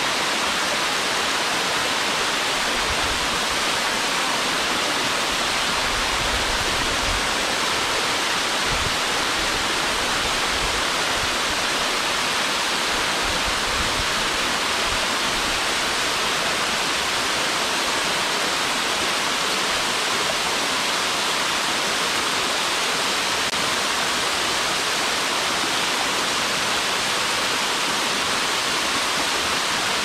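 A 17-metre curtain waterfall running steadily, its water falling in thin sheets over rock ledges and splashing onto a rocky creek bed, making an even, unbroken rush.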